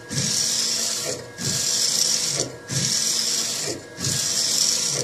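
AnaJet mPower direct-to-garment printer's print-head carriage sweeping back and forth while printing onto a T-shirt: a steady high whirring hiss on each pass, broken about every 1.3 seconds by a short lull and a low knock as the carriage turns around.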